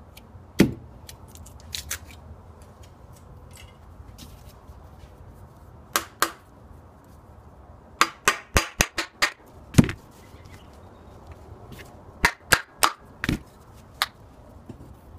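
A hammer knocking a cured resin casting out of its tube mould: irregular sharp knocks, some single and some in quick runs, the loudest about ten seconds in.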